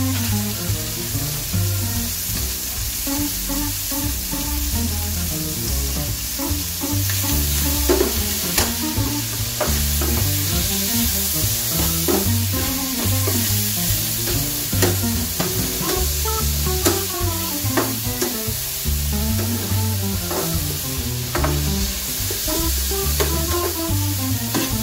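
Sliced bell peppers sizzling in a hot frying pan as they are stir-fried, with a metal spatula scraping and clicking against the pan many times.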